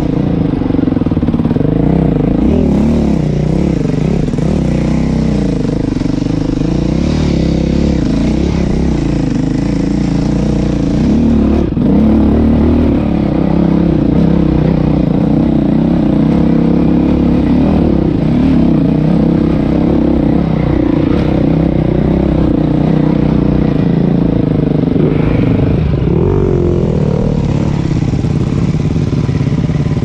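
Dirt bike engine running while being ridden over rough trail, its revs rising and falling constantly as the throttle is worked. There is a quick rev-up near the end.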